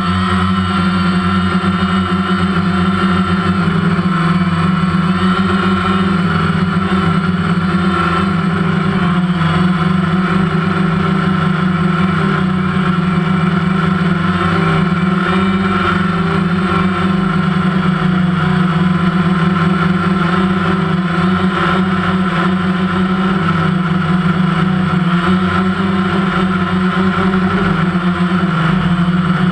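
Multirotor drone's motors and propellers running in flight, a steady loud hum with several held tones, heard from the camera carried on the drone.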